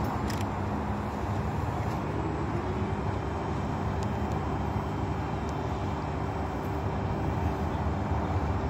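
Steady low mechanical rumble, like an engine running at a distance, with a faint steady hum that comes in about two and a half seconds in.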